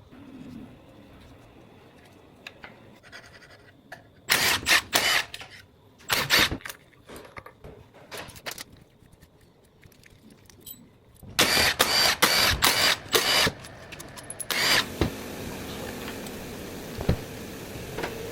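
Workshop handling noises: several short bursts of clattering and scraping, with a steady mechanical running noise setting in about fifteen seconds in.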